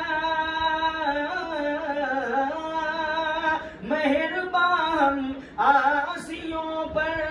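A man singing a naat unaccompanied, drawing out long held notes that bend up and down, with two short breaks for breath about four and five and a half seconds in.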